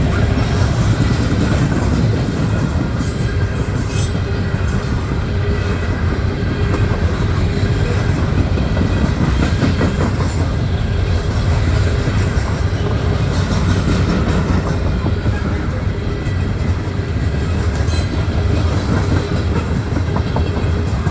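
Loaded coal hopper cars of a long freight train rolling past at speed: a steady, heavy rumble of steel wheels on rail, with scattered sharp clicks.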